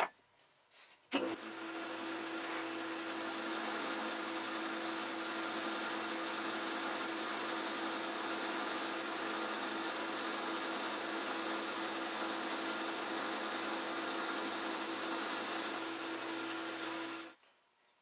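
Atlas metal lathe switched on with a click about a second in, then running steadily with a constant tone while the cutting tool turns down a pin; it stops abruptly near the end.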